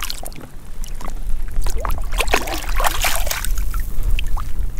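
Shallow seawater splashing and sloshing as a hand sweeps through it to lift a shell off the bottom, with irregular drips and splashes, the loudest around the middle. Raindrops patter on the water surface.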